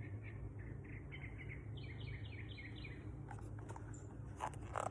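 A small bird chirping faintly in quick runs of short, high notes over a low steady hum. There is a short rustle near the end.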